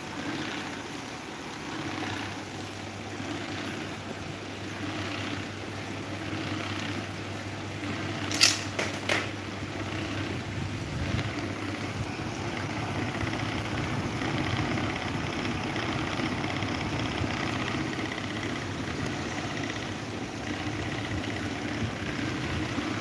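Electric table fan running with a steady hum, with two or three sharp clicks about eight and a half seconds in.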